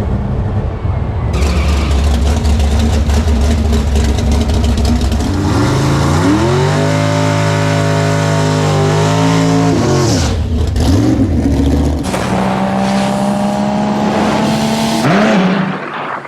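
Cars at a drag strip: a steady low rumble, then an engine revving up in a rising pitch that holds and drops away about ten seconds in, followed by a shorter rise near the end.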